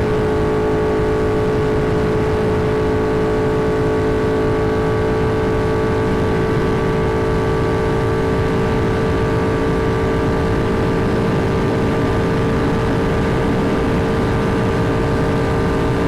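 Triumph Thruxton R's 1200 cc parallel-twin engine through Meerkat racing mufflers, running loud at steady high revs, the pitch holding nearly constant and creeping up slightly.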